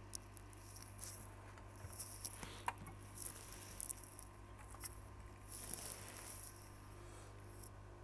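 Faint small clicks and short scraping rustles of tools being handled at a repair bench, over a steady electrical hum. The sharpest click comes just after the start.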